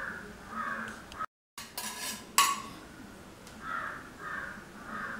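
Small steel bowls clinking and tapping against a stainless-steel mixing bowl as spice powders are tipped into the batter, with one sharp clink about two and a half seconds in.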